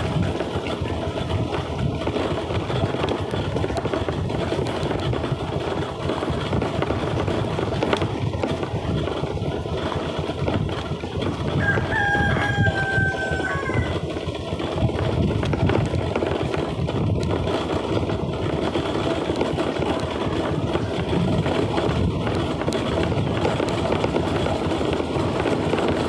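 A car driving on a hill road, its engine and road noise a steady rumble; about twelve seconds in, a rooster crows once, a call of under two seconds.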